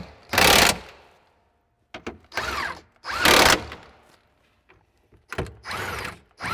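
Cordless impact wrench run in about five short bursts, each under a second, its motor pitch gliding as it spins and hammers the cab's rear hold-down bolts tight.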